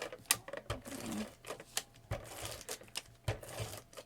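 ATG adhesive transfer tape gun being run along paper, its tape-feed mechanism giving a string of irregular sharp clicks.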